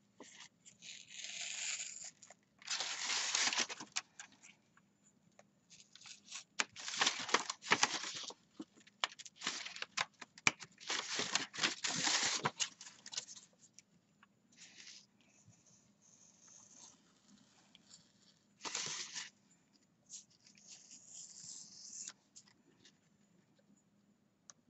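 A knife cutting through heavy paper in irregular scraping, tearing strokes of a second or two each, with quieter gaps between.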